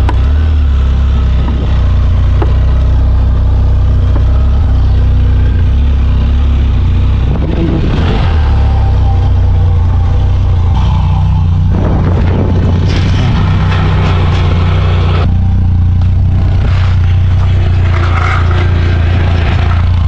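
Benelli TRK 502X motorcycle's parallel-twin engine running at low speed with a steady low drone as the bike rolls over grass and dirt, with bursts of rushing noise partway through.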